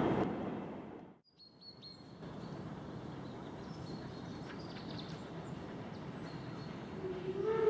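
A passing train's running noise fades out within the first second, followed by steady outdoor background with birds chirping. Near the end a steam locomotive whistle starts: one low, steady tone that slides up briefly as it opens, then holds.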